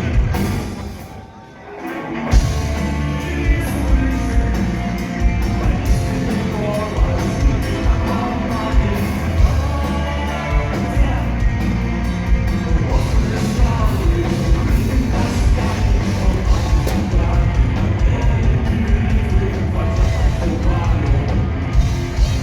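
Heavy rock music from a full band with drums. It drops away briefly about a second in, then the whole band comes back in.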